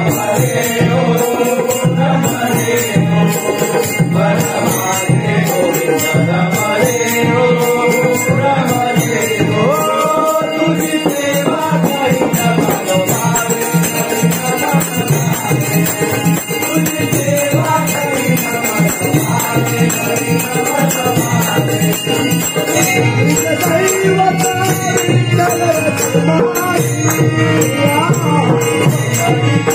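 Devotional bhajan sung by a group of voices, with a steady low rhythmic beat and jingling hand percussion.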